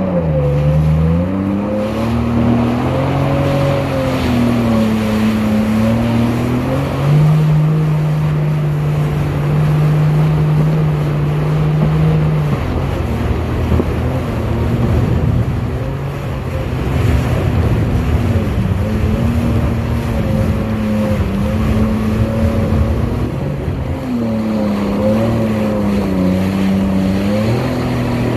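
Jet ski engine running at speed, its pitch rising and falling with the throttle and holding steady for a few seconds in the middle, over a rush of wind and splashing water on choppy water.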